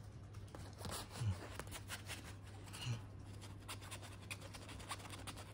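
Faint scratching and rustling of a plastic cable tie dragged and flicked over a bedsheet, with soft low thumps about a second in and again about three seconds in, over a steady low hum.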